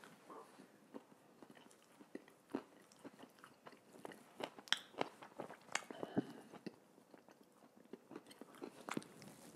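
Close-miked chewing of a mouthful of Italian meat-and-cheese sub with lettuce: irregular soft crunches and wet mouth clicks, with a louder run of crunches around the middle.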